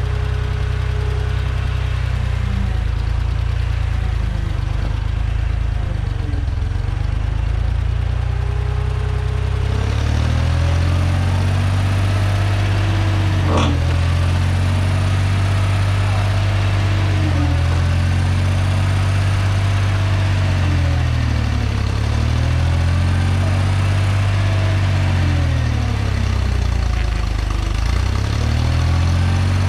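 Ford 3550 industrial tractor's engine running, steady for the first third, then its speed rising and falling again and again as it is worked. A single sharp click about halfway through.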